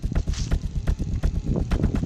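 Background music with a fast, driving percussive beat of rapid even hits.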